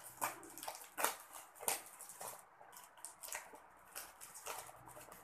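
Yellow mailer package crinkling and rustling as it is handled and pulled open by hand, a string of irregular small crackles and clicks.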